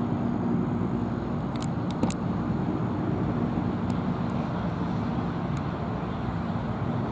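A motor vehicle engine running steadily, a low even hum with a couple of faint clicks about two seconds in.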